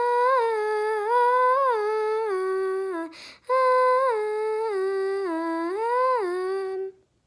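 A young girl's voice humming a wordless singing exercise in two phrases, the pitch stepping up and down and sinking lower toward the end of each. A quick breath comes about three seconds in.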